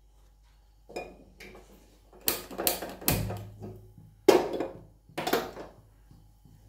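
Sharp metallic clicks and clanks with a short ringing tail, about six over four seconds, from an aluminium pot on a steel gas stove as a hand-held gas lighter is used to light the burner.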